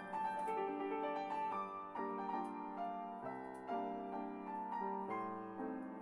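Grand piano played solo: a melody over changing chords, with fresh notes struck several times a second.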